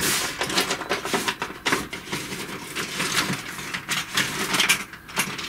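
Rummaging: a steady run of irregular clicks, knocks and rustles as small objects are moved about on a workbench while searching for the microscope's remote control.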